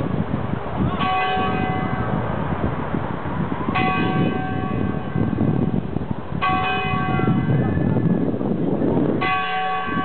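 Church bell tolling slowly: four strokes about two and a half seconds apart, each ringing on with a cluster of overtones before it fades.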